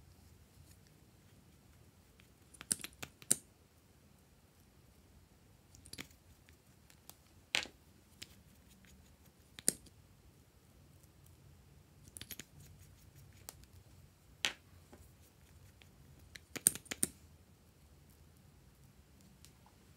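Plastic lip gloss tubes with figurine caps being handled and uncapped, giving sharp plastic clicks and taps. The clicks come singly or in quick clusters every two seconds or so.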